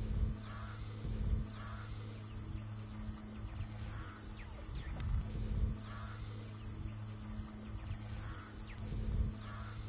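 A steady high-pitched drone of insects, with a bird calling in short repeated phrases every second or two over a low steady hum.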